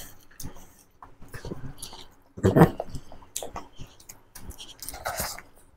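Close-up eating sounds of rice, curry and boiled egg eaten by hand: wet chewing and mouth smacking clicks. The loudest moment is a short low vocal sound about two and a half seconds in, and a brief hiss comes near the end.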